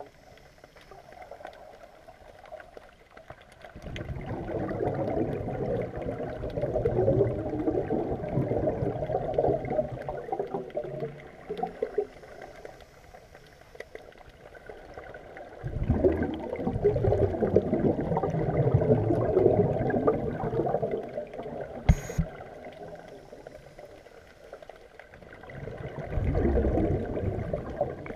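Scuba regulator exhaust bubbles heard underwater: three long bubbling bursts of exhaled air, each several seconds long, with quieter gaps between them while the diver breathes in. A single sharp click about three quarters of the way through.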